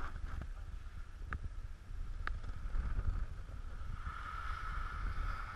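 Skis sliding on groomed snow, a steady hiss that grows near the end, with wind rumbling on the microphone and a couple of sharp clicks about one and two seconds in.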